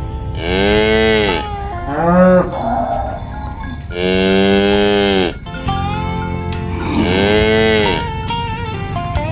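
Cows mooing: three long moos of about a second each, with a shorter call between the first two, each rising and then falling in pitch.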